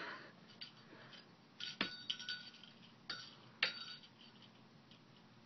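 Light clinks of small hard objects knocking together, four or so in about two seconds starting a couple of seconds in, some with a brief high ring.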